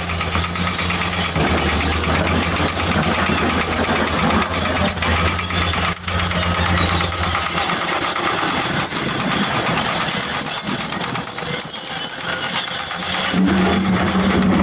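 Diesel engine of tracked heavy equipment running, with the steel crawler tracks clanking in a dense, rapid clatter and a high steady whine throughout. The low engine note drops away about halfway through and comes back near the end.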